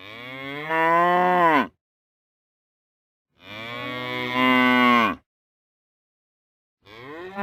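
Cow mooing: three long moos, each about a second and a half to two seconds, with gaps of nearly two seconds between them. Each moo grows louder partway through and drops in pitch as it ends; the third is still going at the close.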